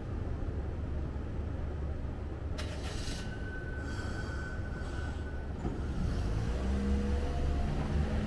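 Kumamoto City Tram type 1200 streetcar starting off in street traffic, over a steady low rumble. A sudden hiss comes about two and a half seconds in, then a steady high tone for a couple of seconds, and in the last seconds a slowly rising motor whine as the tram moves away.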